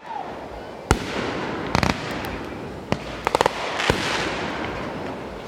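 Aerial fireworks going off: a few separate sharp bangs and quick rattling clusters of cracks, with a crackling fizz spreading after the bang a little before four seconds in.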